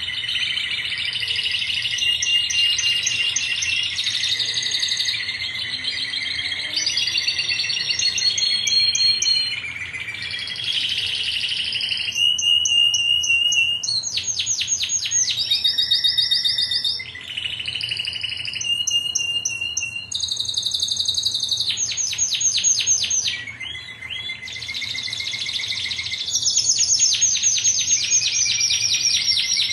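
Domestic canary singing a continuous song of fast rolling trills, each run of rapidly repeated notes giving way to another at a different pitch every second or two.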